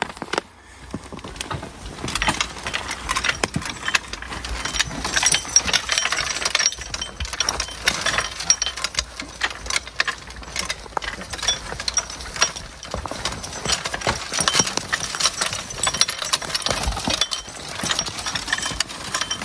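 Horse-drawn logging cart and harness on the move: chains and metal hardware rattling and clinking, with many irregular knocks, as over a rocky trail.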